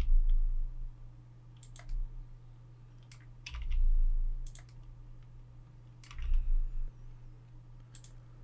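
Computer keyboard keys pressed in short groups every second or two, each group with a dull low thud, over a steady low hum.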